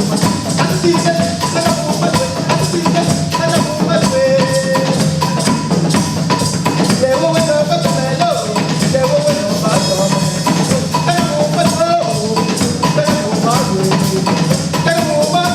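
Music: a melody over a steady beat of light percussion.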